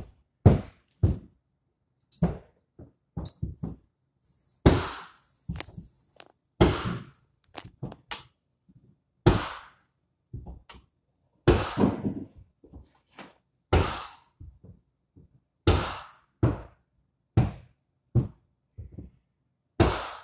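A string of short knocks and thunks mixed with brief hissing noises, coming every second or two, from hands working refrigerant gauge hoses and fittings at a refrigerator's tubing.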